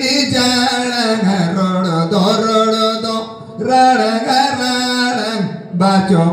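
A man singing a slow, chant-like song in long held phrases, with short breaks between phrases.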